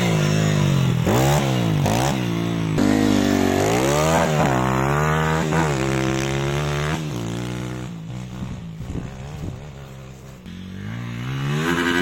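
YCF SP1 150 pit bike's single-cylinder four-stroke engine, running on a newly fitted Keihin PE28 carburettor, revving up and dropping back over and over as it is ridden. The engine fades away about eight seconds in and grows louder again near the end as the bike comes back.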